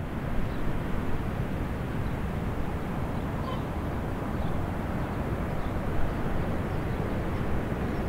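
Steady low rumbling noise, with a few faint, brief high chirps scattered through it.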